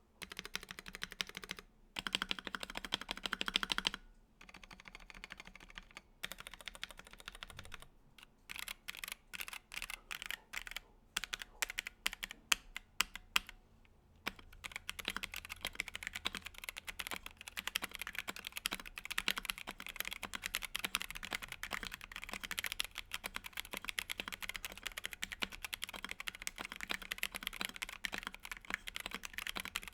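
Mechanical keyboard being typed on: a D65 with a polycarbonate plate, stock Dusk Panda linear switches and Akko ASA-profile keycaps. Short bursts of fast typing, then single keys struck one by one, a few a second, around the middle, then steady fast typing through the second half.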